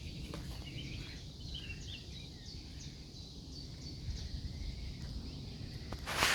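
Small birds chirping faintly in short calls over a steady low outdoor rumble, with a loud rustling crunch near the end.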